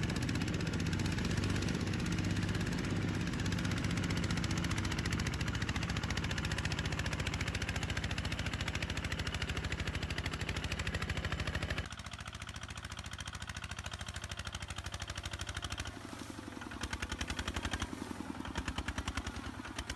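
Single-cylinder diesel engine of a two-wheel walk-behind tractor running steadily with a rapid chugging beat, under load as the tractor and its loaded trailer are stuck in deep mud. About twelve seconds in the sound drops and changes to another walk-behind tractor's engine, whose chug grows more distinct near the end.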